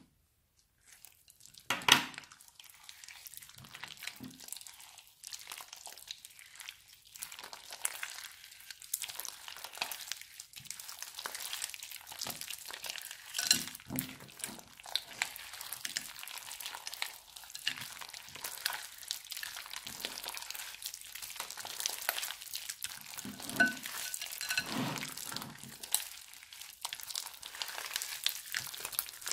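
Hands kneading and squeezing crunchy slime full of small beads in a glass bowl: dense crackling and popping with sticky squelches. It starts about two seconds in with a sharp click.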